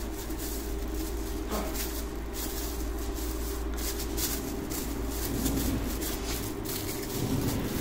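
Clear plastic bags and a plastic card holder being handled, giving irregular crinkling and crackling, over a steady low machine hum.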